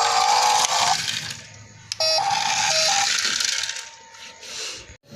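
Tinny electronic sound effects from the mini RC truck's built-in sound module, played through its small speaker in two bursts of about a second each. Each burst is a steady pitched tone over a hiss; the second starts with a quick run of clicks.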